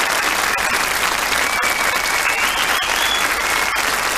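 Studio audience applauding steadily, with a long high whistle from the crowd over the clapping.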